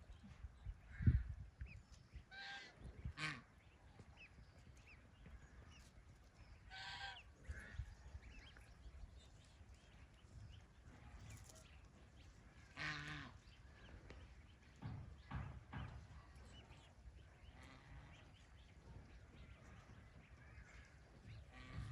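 Farm ducks giving a few scattered, separate honking quacks, with low bumps and thumps between the calls.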